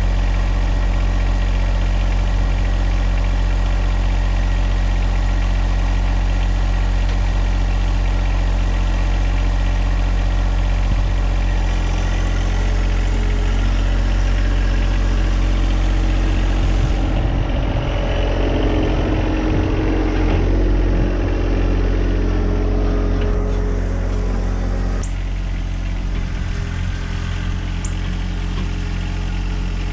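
Tractor engine running steadily while pulling a box blade with its claws lowered to till the soil. About two-thirds of the way through the sound turns rougher and uneven for several seconds, then settles a little quieter.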